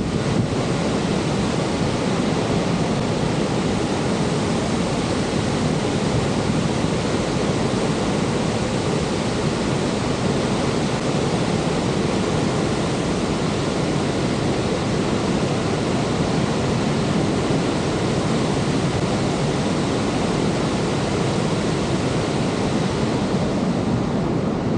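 Horseshoe Falls at Niagara: the steady, unbroken rush of the falling water, a deep, even noise without let-up.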